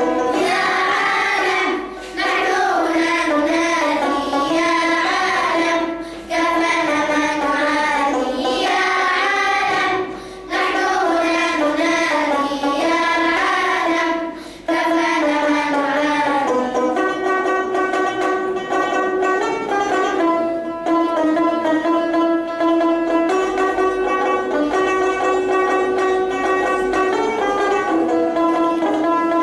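Children's choir singing an Arabic nasheed in unison with instrumental accompaniment, in phrases of about two seconds with short breaths between. About halfway through the voices drop out and an instrumental interlude of held melodic notes follows.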